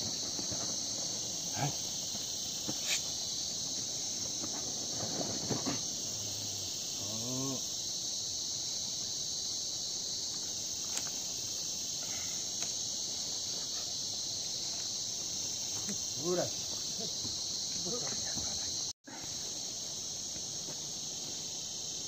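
Steady, high-pitched insect chorus, with a few short, faint human calls now and then.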